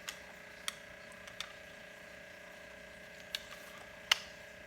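Light clicks of plastic parts being handled: a pressure washer's spray wand and quick-connect nozzles being pressed in and swapped, about five clicks with the sharpest near the end, over a faint steady hum.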